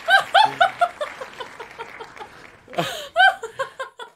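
A woman laughing hard in quick, high-pitched bursts: one run of laughter right at the start and another about three seconds in.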